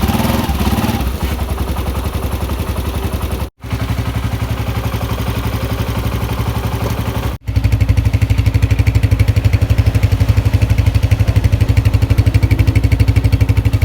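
Honda CG125 single-cylinder four-stroke motorcycle engine running steadily with even pulsing, test-run after a new cam gear was fitted to cure a loud tak-tak noise. The sound cuts out briefly twice, and after the second break it is louder.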